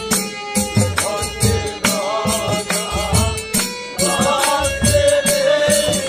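Live Bengali folk music (bicched gaan): a drum beats a steady rhythm of about two strokes a second under steady held tones, and a wavering melody line comes in about two seconds in.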